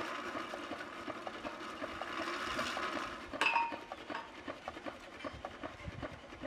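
Well-digging crane's winch running with an even ticking of about four a second while a worker is lowered into the well in its bucket. About three and a half seconds in comes a sharp metallic clink, the loudest sound, after which the running is quieter.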